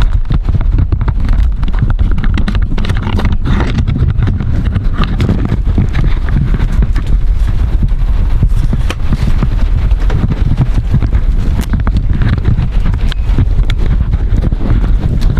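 Rain falling, with many separate drops striking a hard surface as irregular sharp ticks over a steady low rumble.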